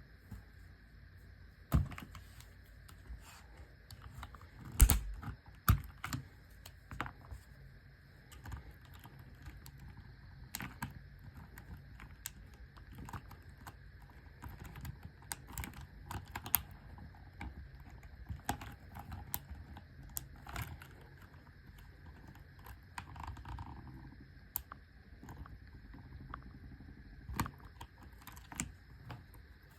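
AJAZZ AK680 mechanical keyboard with stock brown tactile switches being typed on: uneven keystroke clacks, with a few louder strikes about 2 and 5 seconds in.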